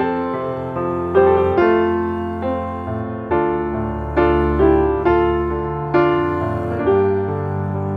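Background music: a piano or electric piano playing gentle chords, a new note struck about every half second and left to ring.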